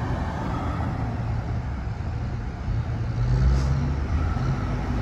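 Diesel engines of heavy earthmoving machinery, an excavator and a dump truck, running steadily in the mud; the engine hum grows louder and heavier about three seconds in.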